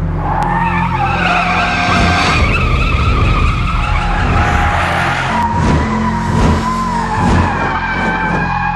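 BMW 1 Series M Coupé drifting, its rear tyres squealing in one long, wavering squeal over the note of its twin-turbo straight-six under power.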